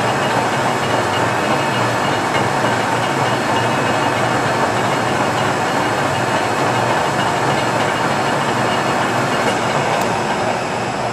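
Geminis GE 1200-5-3G heavy-duty engine lathe running with its 47-inch four-jaw chuck turning at about 112 RPM: a steady, loud machine running sound with several held tones, driven by a 50 HP main drive.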